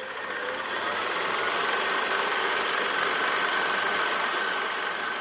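Synthetic outro sound effect under an animated logo: a steady whirring hiss with a thin high tone, building over the first couple of seconds and beginning to fade near the end.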